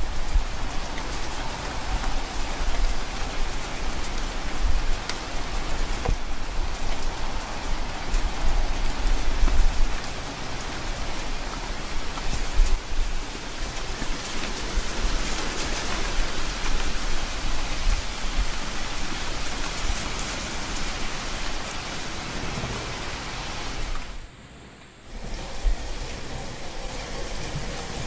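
Steady rain falling, an even hiss, with a low rumble underneath that swells and fades. Near the end the sound dips sharply for about a second, then comes back.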